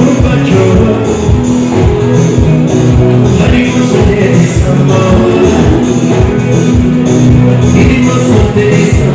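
Loud live band music with a steady, even drum beat and bass line, and a singing voice coming in at times.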